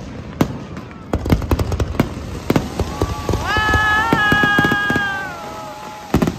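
Aerial fireworks bursting and crackling in quick, irregular succession. About three seconds in, a high held tone with overtones rises, holds for nearly two seconds and slides down again.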